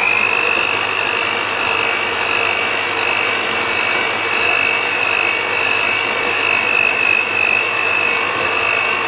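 Electric hand mixer running steadily, its beaters whisking egg yolks and icing sugar in a plastic bowl, with a steady high motor whine.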